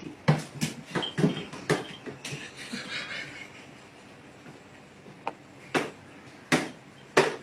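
A series of sharp knocks and thumps, coming thick and fast for the first two seconds, then a few single loud knocks spaced out towards the end.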